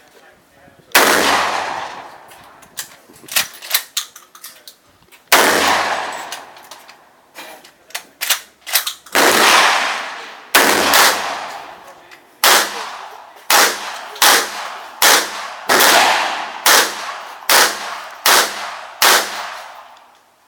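Adler lever-action 12-gauge shotgun firing a string of loud shots, each with a long echoing tail. The first few come several seconds apart, then they follow about once a second.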